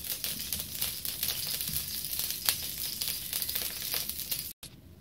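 Freshly poured cooking oil crackling and spitting in a hot black enamel frying pan: a dense run of pops and crackles that cuts off abruptly near the end.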